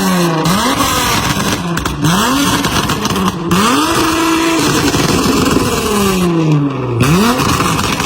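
Dodge Charger SXT V6 on a stage 2 tune, revved up and let fall back again and again, with crackles and pops from the exhaust as the revs drop.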